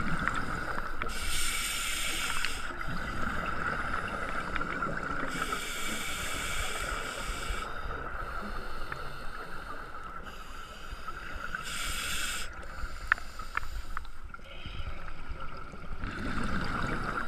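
Scuba diver breathing through a regulator underwater: a hissing breath followed by exhaled bubbles, repeating about every five seconds over a steady underwater hiss. A single sharp click comes about thirteen seconds in.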